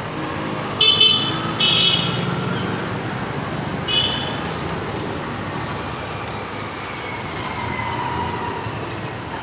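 Street traffic noise with vehicle horns honking: two short toots about a second in and a briefer third one about four seconds in.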